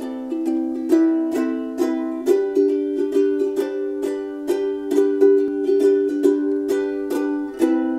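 Plucked-string instrumental music: quick picked notes over ringing chords, the chord changing about two seconds in and again near the end.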